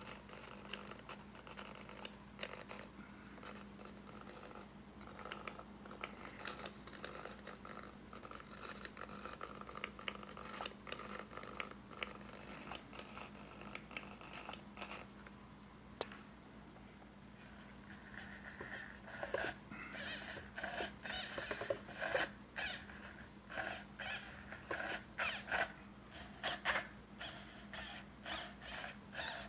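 Scratching and clicking handling noises over a faint steady hum. About two thirds in they become a run of scraping strokes, roughly one and a half a second.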